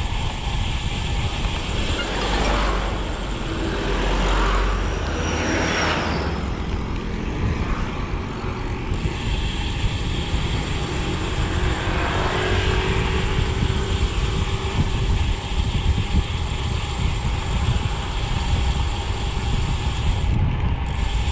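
Wind rushing over the microphone of a road bike rolling downhill at speed. Motor vehicles pass twice, swelling and fading about two to six seconds in and again about twelve seconds in.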